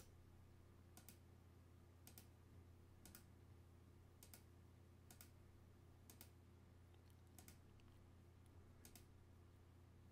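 Near silence with faint computer mouse clicks, about one a second, over a low steady hum.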